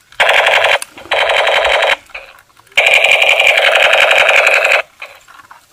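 Battery-operated blue toy machine gun firing with its muzzle spinning: a rapid buzzing rattle in three bursts, two short ones and then one of about two seconds, each starting and stopping abruptly.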